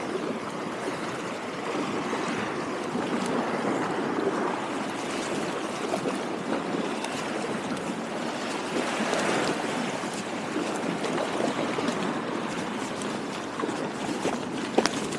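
Steady rush and splash of water, with a few faint clicks near the end.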